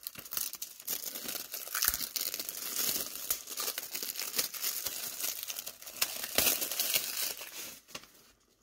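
Plastic shrink-wrap crinkling and tearing as it is peeled off a DVD case and crumpled by hand: a dense run of crackles with sharper snaps now and then, dying away near the end.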